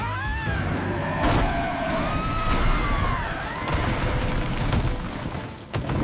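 Cartoon crash sound effects: a low rumbling boom as a truck hits a wall, under dramatic background music, with a few sharp knocks near the end.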